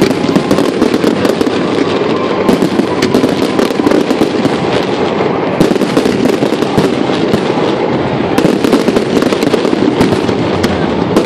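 Fireworks display: a dense, continuous barrage of overlapping bangs and crackles with no pause.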